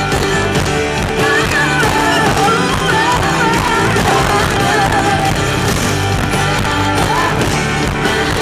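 Live pop-rock band playing amplified music, with electric guitar and drums and a wavering melody line on top.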